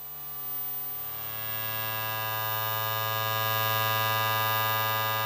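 Intro music: a sustained synthesizer drone chord that swells in slowly and then holds steady.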